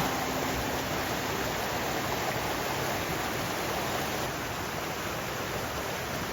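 Steady rushing water of a mountain valley stream running high after heavy rain.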